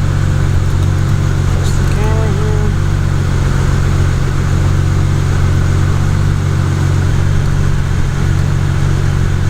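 Toyota Supra engine idling steadily, a constant low even drone.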